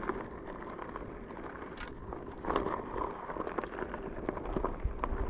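Board rolling over rough ground, a steady low rumble broken by scattered small knocks from bumps, with wind rushing over the helmet-mounted microphone.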